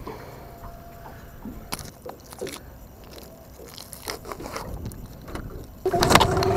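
Crinkling and rustling of a plastic bait packet as a soft-plastic lure is pulled from it. Near the end a boat motor starts suddenly and runs with a steady hum, louder than the crinkling.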